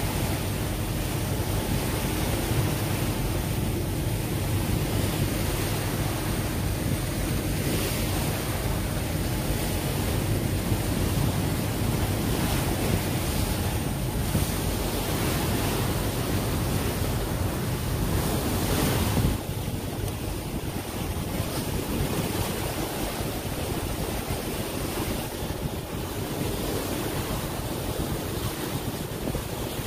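Steady rush of wind on the microphone and water, heard aboard a moving boat, with a faint steady hum underneath; it eases slightly about two-thirds of the way through.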